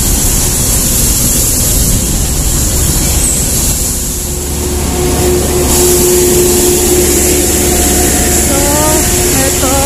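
Busy city road traffic: a steady low rumble of passing vehicles, with a steady engine drone coming in about halfway through.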